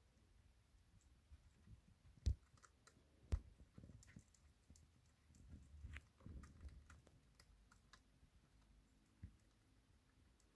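Syrian hamster nibbling and chewing seeds and dry food, faint crunching clicks with two sharper cracks a couple of seconds in.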